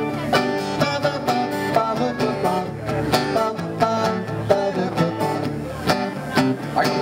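Live acoustic band playing an instrumental break in a country-style song, with plucked strings keeping a steady beat under a melodic lead.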